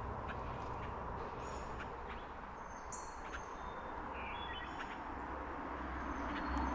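Creek water running steadily, with short, high bird chirps scattered over it.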